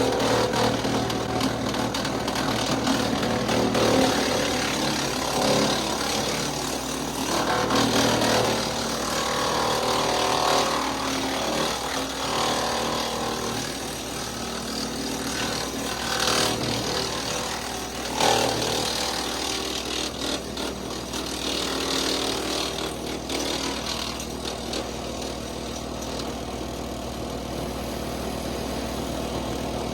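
Kubota L3901 tractor's diesel engine running steadily under load, driving a WoodMaxx MX-8800 PTO wood chipper's spinning flywheel. Irregular louder stretches of noise come as saplings are fed through and chipped, with sharp peaks near the middle.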